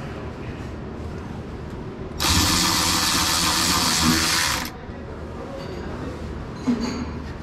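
Cordless electric ratchet running for about two and a half seconds, driving in a screw to fasten the ECU's mounting plate, then a short sharp click near the end.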